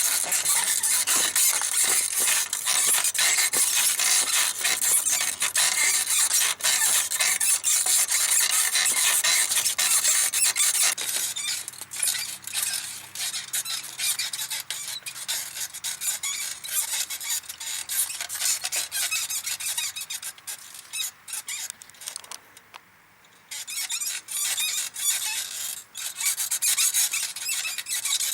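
Small rebuilt Mifa bicycle saddle squeaking and rubbing in quick strokes as it is ridden. It is loud for the first ten seconds or so, then softer, stops briefly about 22 seconds in, and starts again loudly.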